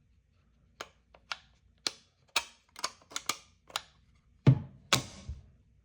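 Steel dust cover of a Micro Draco AK-pattern pistol being worked onto the receiver: about ten sharp metal clicks over four seconds, then two louder, deeper knocks near the end as the cover seats in place.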